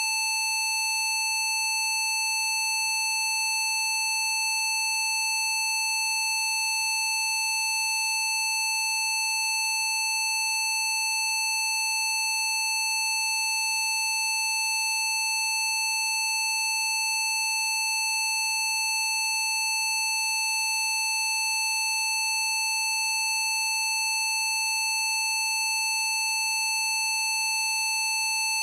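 A steady, unbroken electronic test tone at one pitch, with fainter higher overtones, played as a PC Zapper frequency for bruxism.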